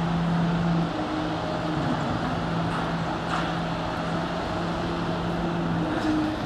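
Long-reach crawler excavator's diesel engine running with a steady hum, over a constant background rush.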